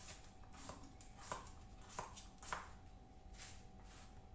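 Kitchen knife slicing Chinese broccoli stalks thin on a cutting board: about six unhurried cuts, each a sharp chop, the middle three the loudest, over a faint steady hum.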